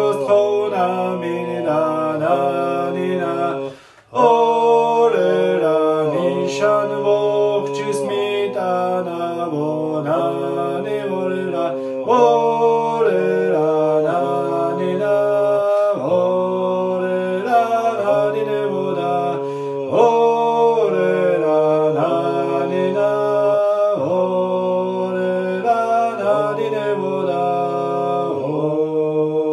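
Garmon (button accordion) playing an Adjarian folk tune: a melody in steady held notes over sustained bass chords. There is a brief break about four seconds in.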